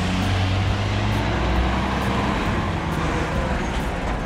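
Road traffic passing close by, led by a heavy truck's diesel engine running with a deep hum that is strongest for the first couple of seconds and then eases.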